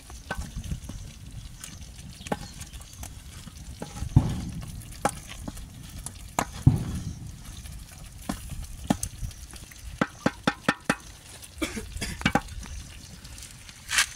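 A utensil stirring in a cooking pot, with scattered knocks and clicks against the pot over a low rumble: two heavier thumps a few seconds apart, then a quick run of clicks about two-thirds of the way through.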